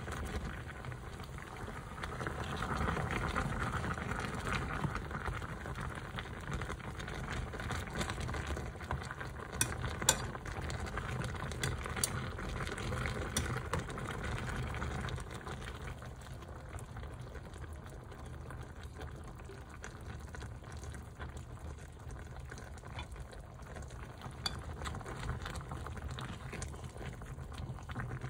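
Food sizzling and bubbling as it cooks in a pot, with a couple of sharp utensil clinks. It goes quieter about halfway through.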